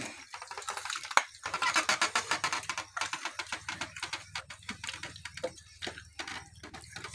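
Wood fire in an open hearth crackling, with quick irregular pops and snaps from the burning logs and embers, over a low steady hum.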